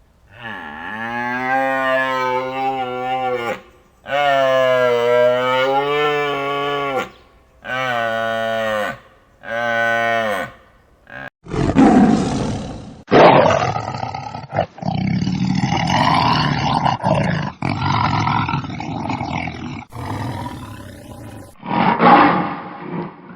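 Animal calls: four long, low, drawn-out calls, then from about halfway a run of harsher, rougher calls.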